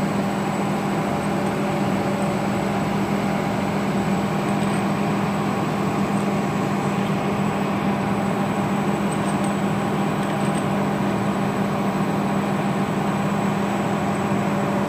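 Steady mechanical hum of a running machine: a constant low drone with a few fainter, higher steady tones above it.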